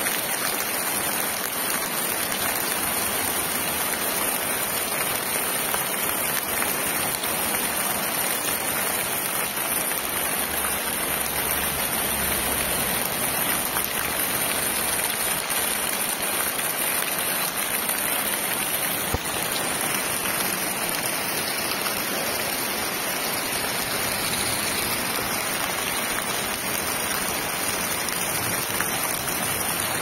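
Heavy rain pouring onto rock: a dense, steady hiss of countless drops splashing on wet stone.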